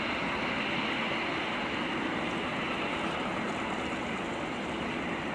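Steady traffic noise from a busy street, an even rushing hum with no distinct single events.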